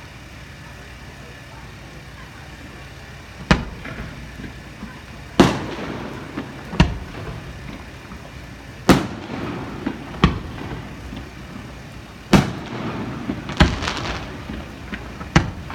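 Aerial fireworks shells bursting: about nine sharp bangs at irregular intervals, starting a few seconds in, each one trailing off.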